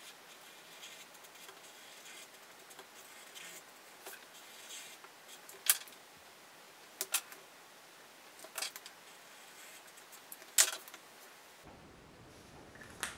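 Felt-tip pens scratching faintly on paper, with several sharp clicks in the second half.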